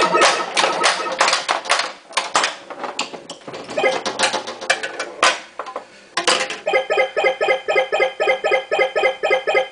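Bally Voltan Escapes Cosmic Doom pinball machine in play: rapid clacks and knocks of the ball, flippers and bumpers mixed with short electronic game tones. Over the last few seconds a rapid repeating electronic tone pattern plays, about four beeps a second.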